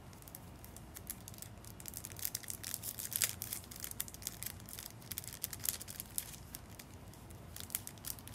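Crinkling and rustling of small packaging being handled and torn open by hand, a dense run of sharp crackles, busiest in the middle.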